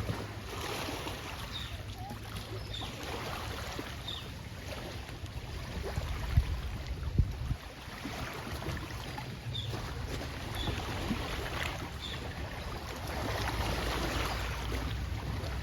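Steady low wind rumble on the microphone with outdoor hiss at a lakeshore, with faint short high chirps now and then and a couple of knocks about six and seven seconds in.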